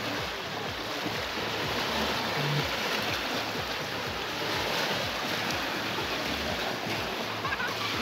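Small waves breaking and washing up a sandy shore: a steady wash of surf.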